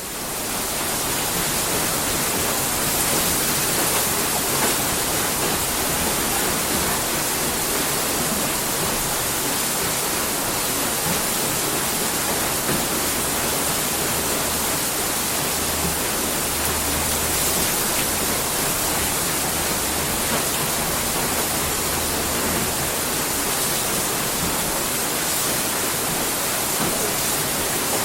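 Water mill wheel turning, with water pouring and splashing off it in a steady, unbroken rush.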